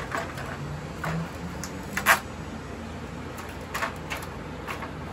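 Scattered clicks and knocks of plastic and metal TV parts being handled and pulled apart, the loudest about two seconds in.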